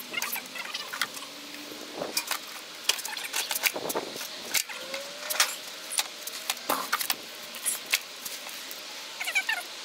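Scattered metallic clicks, knocks and rattles as a Yamaha RS125 motorcycle is rolled and turned around by hand. There is a brief rising squeak about five seconds in.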